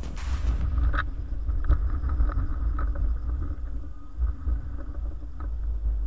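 Low, uneven rumble of a snowplow pickup truck running while it plows, with a faint steady hum and a few light knocks. Background music cuts off about half a second in.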